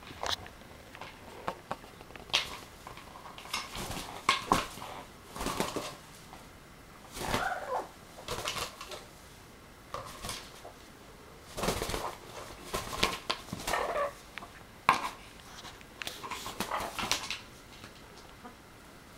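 An Amazon parrot calling in short, irregular bursts as it attacks a plastic bottle, mixed with clicks and knocks of the bottle being bitten and shoved.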